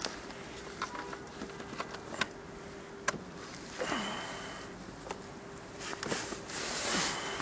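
Clicks and rustling from hands working at a scooter's ignition and controls while its dashboard powers up, with a faint steady hum and a short high tone about four seconds in and again near the end. The engine is not yet running.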